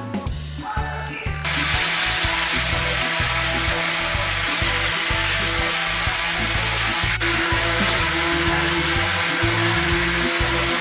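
Electric random orbital sander switching on about a second and a half in and running steadily on a wooden chair frame, under background music with a steady bass beat.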